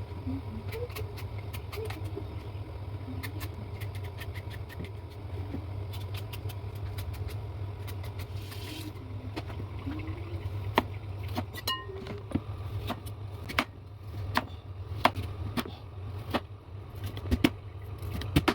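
Kitchen work over a steady low hum: irregular sharp knocks and clinks of utensils and cookware, sparse at first and more frequent from about halfway, one with a short metallic ring.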